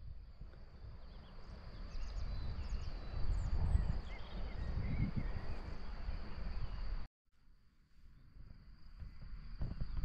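Outdoor countryside ambience: wind rumbling on the microphone, a few birds chirping and a steady high thin drone. The sound drops out for a moment about seven seconds in, then the rumble returns.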